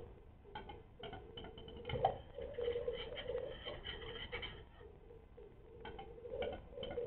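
Male western capercaillie singing its display song: a run of dry clicks that speeds up, a louder knock about two seconds in, then a quick scraping phrase of rapid clicks; a new run of clicks begins near the end.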